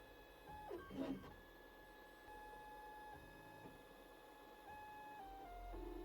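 FDM 3D printer's stepper motors running as the print head moves, a faint steady tone that jumps to a new pitch every second or so. About a second in, a brief louder sound sweeps down and back up in pitch.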